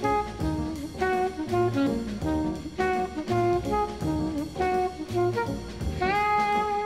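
Jazz music: a horn melody of short notes over a steady drum-kit beat, with one long held note that bends up in pitch near the end.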